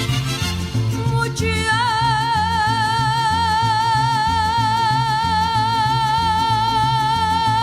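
Mexican folk music from a live band: a bass line keeps an even, repeating beat, and from about a second and a half in a single high note with wide vibrato is held to the end.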